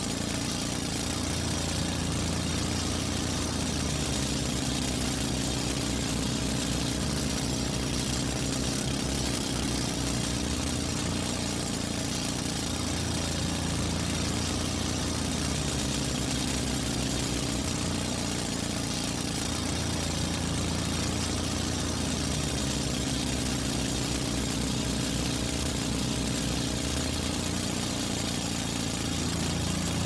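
A drill running continuously without stopping: a steady low mechanical drone with a noisy hiss above it, its low tones shifting slightly every few seconds.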